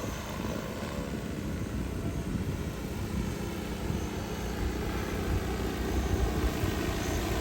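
DJI Agras T30 crop-spraying drone, its rotors humming steadily in flight and growing slightly louder.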